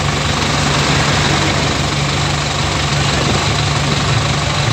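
Diesel tractor engine running steadily while the tractor drives along the road, a constant low hum with no change in speed.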